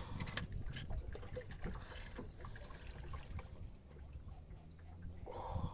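Irregular knocks and clatter in a small fishing boat, with water trickling, as a freshly caught catfish is handled aboard.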